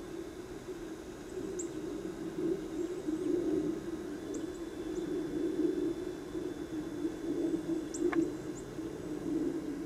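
Steady low rushing outdoor background noise, with a handful of faint, very short high-pitched bird chirps scattered through it and a single small click near the end.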